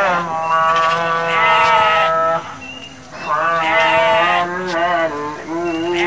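Sheep bleating: long, wavering bleats, several overlapping, with a brief lull about halfway through.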